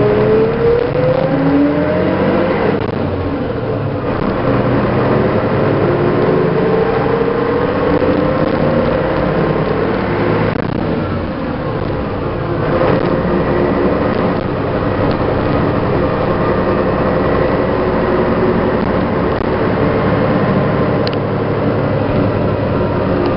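MAN SL 202 city bus's horizontal six-cylinder diesel engine running on the move. Its note climbs under acceleration and drops back at gear changes a few times, then settles into a steadier run.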